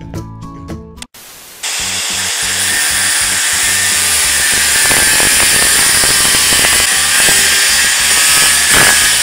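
Background music with plucked notes stops about a second in. Then an angle grinder with an abrasive cut-off disc runs and cuts into a metal pipe, a loud steady grinding with a high whine. The cut is made freehand and comes out uneven.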